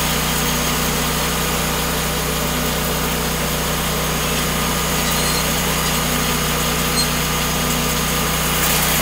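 Portable band sawmill's engine running steadily at an even speed, not cutting.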